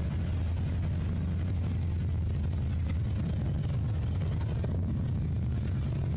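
A motor vehicle's engine running, a steady low rumble at an even level.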